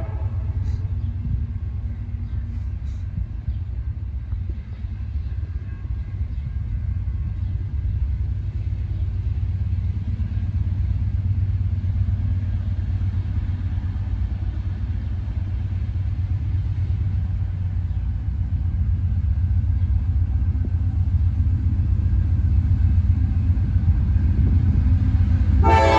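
Approaching CSX freight train's three diesel locomotives: a steady low rumble that slowly grows louder as they come closer. The horn starts again right at the end.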